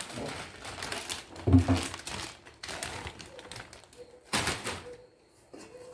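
Potato strips pouring from a plastic bag into a plastic air fryer basket: a run of light clatters and bag crinkling, with a heavier thump about a second and a half in and a loud rustle about four seconds in.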